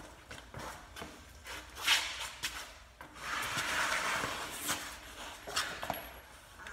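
Handling noises from a car wheel and tyre being picked up off a shop floor: scattered knocks and clicks, one sharp knock about two seconds in, then a longer rubbing scrape of the tyre just past the middle.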